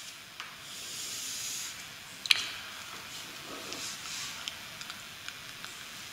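Chalk drawn along a chalkboard in one long stroke, a soft scraping hiss lasting about a second, then a sharp tap of chalk on the board about two seconds in and a few faint ticks.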